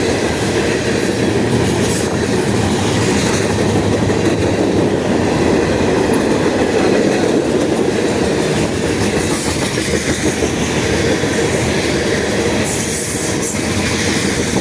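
Norfolk Southern freight train cars rolling steadily past, their steel wheels rumbling along the rails, with a brief high-pitched burst of wheel noise near the end.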